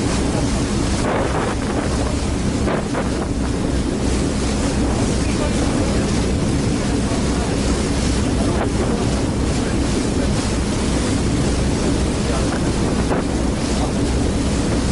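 Passenger ferry under way: a steady low drone of the ship's engines mixed with rushing wind and water noise.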